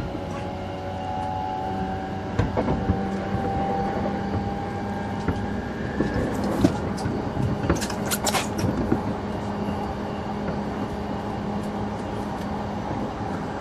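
Running sound inside a JR East E233-7000 series electric train motor car (MoHa E233-7004): a steady rumble of wheels on rail with a constant motor hum. A cluster of sharp clicks and high squeaks comes about halfway through.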